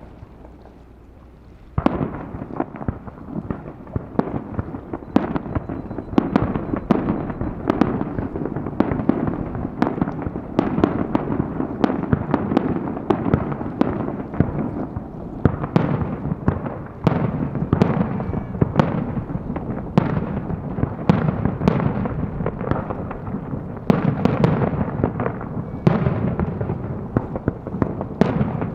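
Fireworks display: after nearly two seconds of wind noise on the microphone, a rapid barrage of shell bursts starts suddenly, dozens of sharp bangs overlapping into a continuous rumble.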